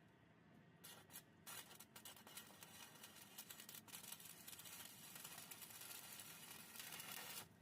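Faint crackling hiss of a stick-welding arc, building over the first seconds and cutting off abruptly near the end, as the arc is broken.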